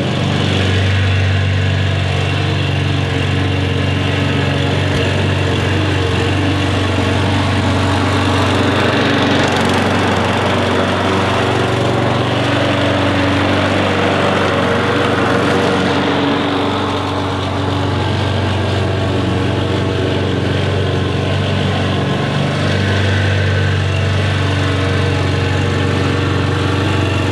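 Lawn mower engine running steadily as a dubbed sound effect, its low hum dipping and picking up again a few times, with a swell of hiss about halfway through.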